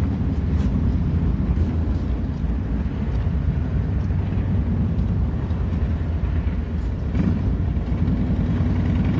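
Diesel locomotives of a BNSF freight train, GE Evolution Series units with V12 diesel engines, running with a steady low rumble as the train slowly pulls forward and works to pick up speed.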